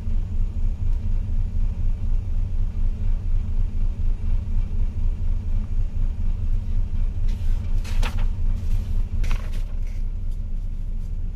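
Steady low rumble of ship's machinery, pulsing about four times a second. Paper rustles briefly as a manual page is turned, about seven to nine seconds in.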